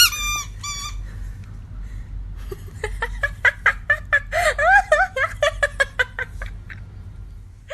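A squeaky dog toy squeaks a few times at the start. After a short pause comes a long run of quick, high-pitched squeaks and chirps.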